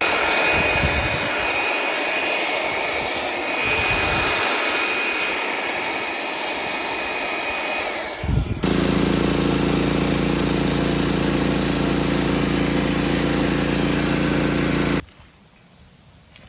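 Norwood LM30 portable bandsaw mill running at high throttle with its band blade cutting a pine log, a steady high whine over the sawing noise. About eight seconds in, the sound changes to an even, steady engine drone with no cutting noise. It cuts off suddenly near the end.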